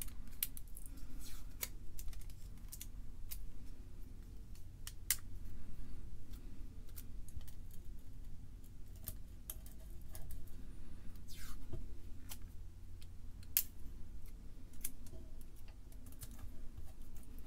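Irregular small clicks and taps of fingers and a hobby knife working Kapton tape down over tube-socket pins on a circuit board, with a low steady hum underneath.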